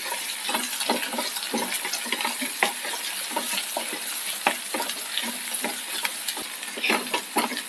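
Shallots, curry leaves and chillies frying in hot coconut oil in a non-stick kadai, with a steady sizzle. A wooden spatula stirs them, making many short clicks and knocks against the pan.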